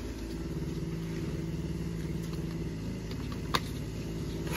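An engine running steadily at an unchanging pitch, with one sharp tap about three and a half seconds in.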